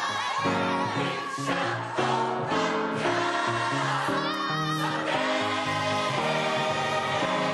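Gospel choir singing an up-tempo song with backing music.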